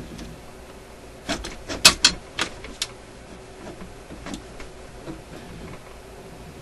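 Clicks and clacks of the RCA Victor 65U record changer mechanism as its metal wheel is forced round by hand. There is a quick run of about eight, loudest about two seconds in, then a few faint ticks. The mechanism is stiff and gummed up, incredibly hard to turn.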